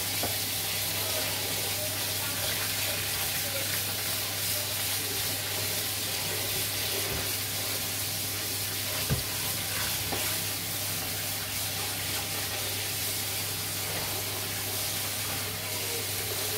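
Cold tap water pouring steadily onto cooked noodles in a plastic colander in a stainless-steel sink, with hands turning the noodles under the stream. A single sharp knock about nine seconds in, over a steady low hum.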